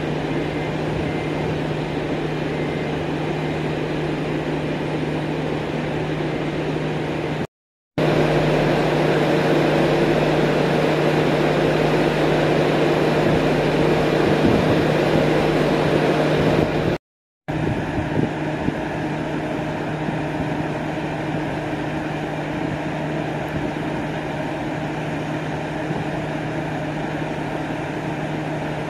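Kyoto Tango Railway KTR 700-series diesel railcar idling at the platform: a steady engine hum over an even low drone. It breaks off twice for a moment of silence, and is a little louder between the breaks.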